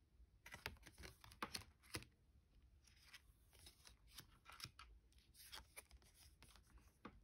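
Tarot cards being flipped and slid over one another on a wooden tabletop: faint quick snaps and swishes, busiest in the first two seconds, then sparser.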